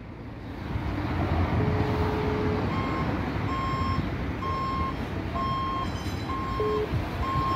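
A vehicle's reversing alarm beeping about once a second, starting about three seconds in, over the low rumble of an engine.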